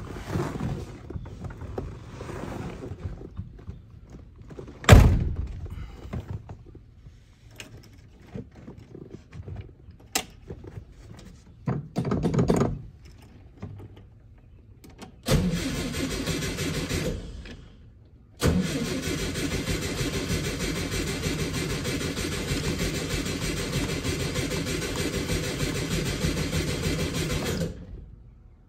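A car door shuts with a sharp thunk about five seconds in. Then the 1954 Volkswagen Beetle's cold air-cooled flat-four is turned over on the starter, first in a short try of about two seconds, then in a longer steady run of about nine seconds that cuts off abruptly near the end.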